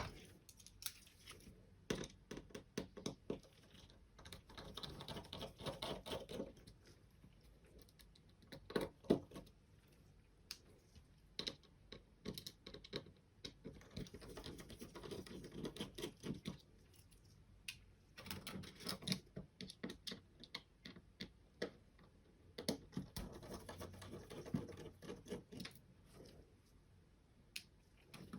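Small screwdriver working out the tiny screws that hold a computer mouse's bottom circuit board, with scattered sharp clicks and taps of the tool and small plastic parts being handled, and a few stretches of scratchy rattling.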